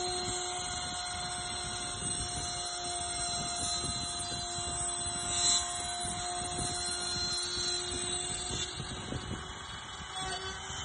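CNC router spindle running steadily with a high whine while its cutter engraves into a cylinder turned on the rotary axis, over a rough scraping noise of the cut.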